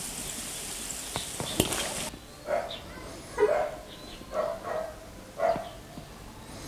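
Hot chili oil sizzling faintly in the dish, with a couple of sharp clicks, cuts off about two seconds in. A dog then barks several short times.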